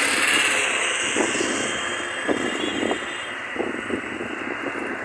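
Motor vehicle running alongside, a steady blend of engine and wind noise that slowly fades over the first few seconds.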